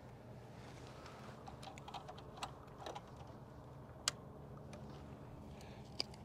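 A few light clicks from a hand working a motorcycle's ignition key switch, with one sharp click about four seconds in and another near the end. No engine turns over or starts.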